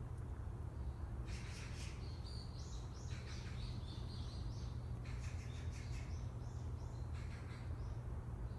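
Small birds chirping, several short high notes in quick clusters, over a steady low hum.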